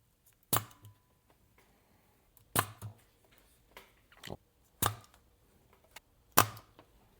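Spring-loaded solder sucker (desoldering pump) firing four times, about two seconds apart. Each firing is a sharp snap as it pulls molten solder off a capacitor lead, with softer clicks between the snaps.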